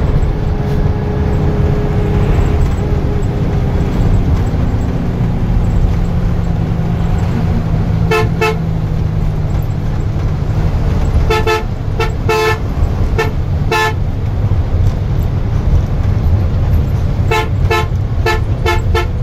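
Steady low engine and road drone inside the cabin of a Hino AK1J coach on a highway, with repeated vehicle horn honks: one blast about eight seconds in, a quick cluster of short toots a few seconds later, and several more short toots near the end.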